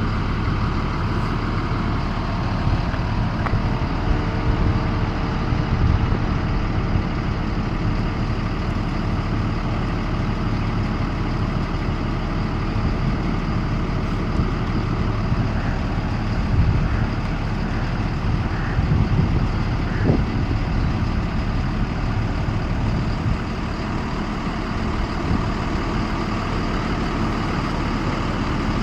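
School bus engine idling steadily, with a few light knocks in the second half.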